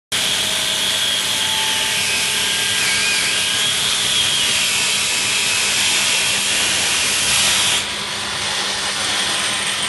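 Angle grinder grinding metal: a loud, harsh, steady grinding hiss with a wavering high whine. About eight seconds in the grinder comes off the work and the sound drops to a duller, quieter run.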